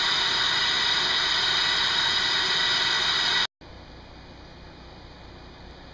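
Steady, loud hissing noise that cuts off abruptly about three and a half seconds in and gives way to a much fainter steady hiss.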